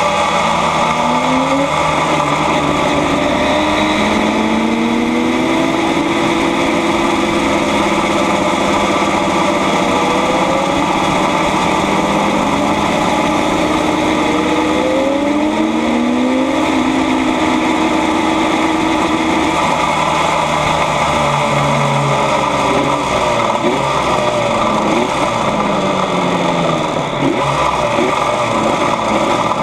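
Yamaha RD 250's air-cooled two-stroke twin running hard under race load, its revs repeatedly rising in short sweeps. In the last several seconds the revs drop lower and waver as the bike slows.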